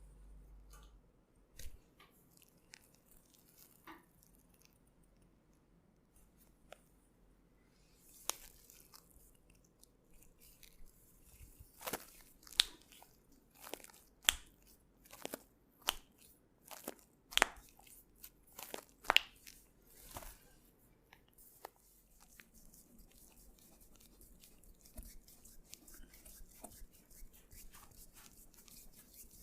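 Hands working on a person during a massage: a few scattered soft clicks, then near the middle a run of about a dozen sharp smacks a little under a second apart, giving way to steady light rubbing of hands on skin.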